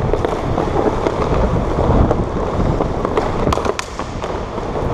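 Hockey skates scraping and carving on rink ice, under a heavy wind rumble on a helmet-mounted camera. A few sharp clicks of the stick on the puck come about three and a half seconds in.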